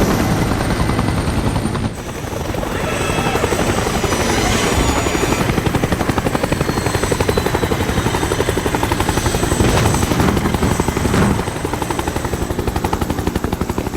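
Helicopter flying, its rotor beating rapidly under a turbine whine. The sound changes abruptly about two seconds in, and the whine then rises in pitch.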